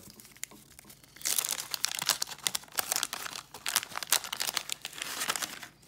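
Wax-paper wrapper of a 1986 Topps baseball card pack being torn open and crinkled by hand. A dense crackling starts about a second in and stops just before the end.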